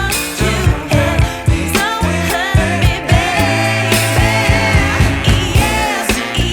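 Background pop music with a steady beat, bass and a singing voice.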